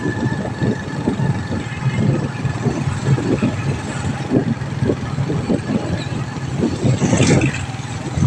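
A vehicle engine runs steadily while moving along a road, with wind buffeting the microphone. About seven seconds in comes a louder rush as oncoming motorcycles pass close by.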